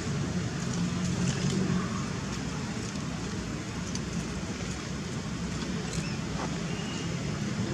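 Steady low hum and rushing noise of distant road traffic, with a few faint clicks.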